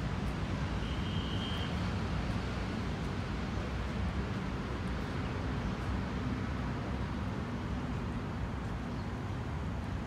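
Steady rumble of city traffic, with a short high-pitched note about a second in.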